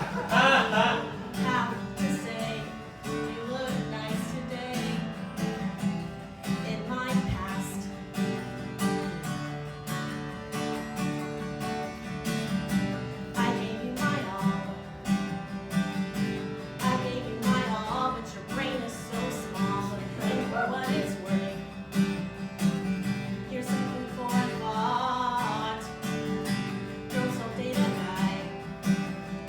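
Acoustic guitar strummed in a steady rhythm, with a woman singing over it in phrases.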